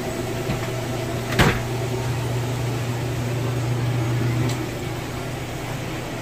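A sharp metallic click of a stainless-steel kitchen cabinet door, over the steady hum of running food-truck kitchen equipment. A low hum is louder for about three seconds after the click, then eases.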